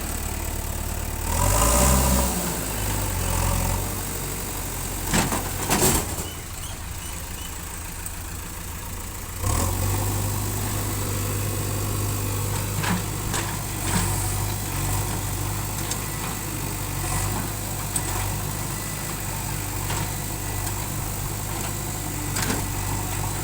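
Heavy diesel engine of earthmoving machinery running, rising in load early on. There are a couple of sharp metallic knocks about five and six seconds in, and from about nine and a half seconds in the engine runs on steadily.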